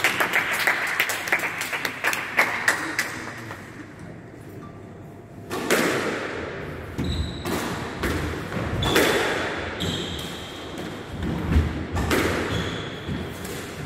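Squash rally: the ball struck by rackets and hitting the court walls in a run of sharp thuds, with a lull of a couple of seconds about four seconds in. Short high squeaks of shoes on the wooden floor come in the second half.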